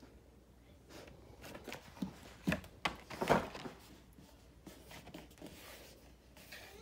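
Handling noise: irregular light scrapes, rubs and taps of a hand on a cardboard tool-set box, busiest between about one and four seconds in.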